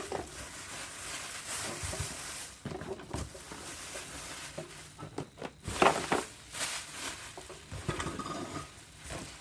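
Packaging rustling while an item is unwrapped and handled, with several knocks of hard parts a little over halfway through.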